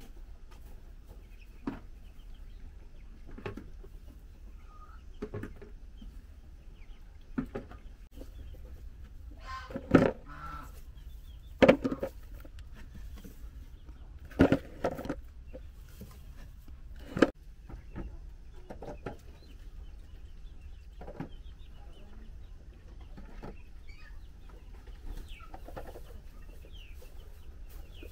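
Chickens clucking, with a series of short, sharp sounds every couple of seconds, the loudest ones in the middle.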